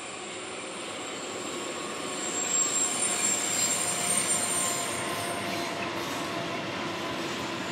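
A freight train of tank wagons hauled by an electric locomotive passing. The noise builds, peaks with a thin high tone as the locomotive goes by about two to five seconds in, then settles into the steady rolling of the wagons.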